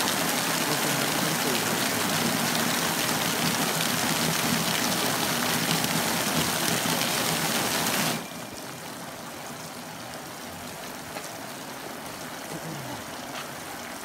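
Water from an illuminated decorative fountain splashing down into its basin as a loud, even rush. About eight seconds in, the tall curtain of jets shuts down and the sound drops suddenly to a quieter, steady splashing from the lower central jet.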